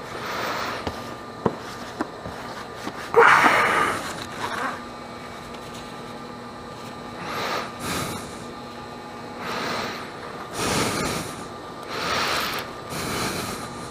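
A person breathing heavily: one loud breath about three seconds in, then a run of breaths about a second apart in the second half.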